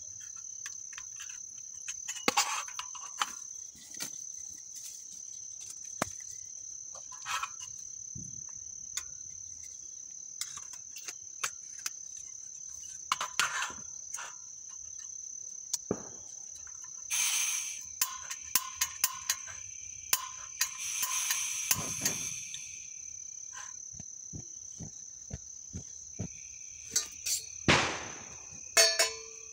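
Crickets chirping in a steady high trill over the clicks, taps and knocks of a portable butane camp stove being handled and its gas canister fitted. There are short hisses of gas about midway, and a loud clank near the end as a steel pot is set down on the burner.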